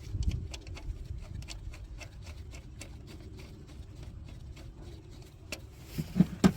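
Ratchet or socket wrench clicking rapidly as the coil pack's 10 mm bolts are tightened into the aluminium rocker cover, with two louder knocks near the end.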